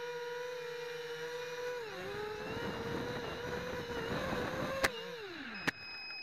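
Hobby King FPV250 quadcopter's brushless motors and propellers whining steadily, heard through its onboard 808 #16 keychain camera, the pitch wavering and rougher as it comes down. A sharp knock as it hits the grass, the motor whine falls away to nothing, a second knock, then a steady high electronic tone.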